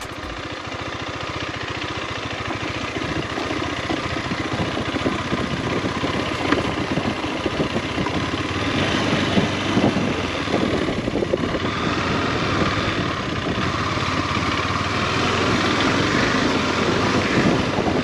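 KTM 390 Adventure's single-cylinder engine running under way, mixed with steady wind and road noise, getting somewhat louder in the second half.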